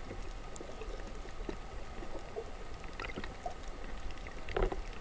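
Underwater ambience on a coral reef, heard through a submerged camera: a low, steady rumble with scattered faint clicks and crackles, and one louder knock near the end.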